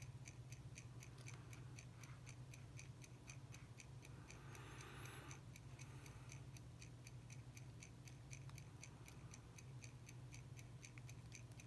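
Faint, steady fast ticking of a mechanical watch movement, about five ticks a second, over a low steady hum; a brief scrape about four and a half seconds in.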